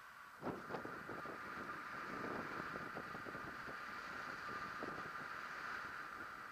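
Wind rushing over the microphone of a camera on a paraglider in flight: a steady hiss with irregular low buffeting, a couple of stronger gusts about half a second in.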